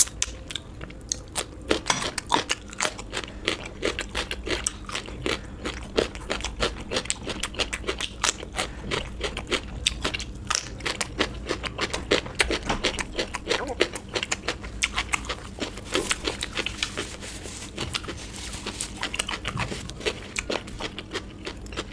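Close-miked chewing of a person eating: a dense, irregular run of quick mouth clicks and crunches.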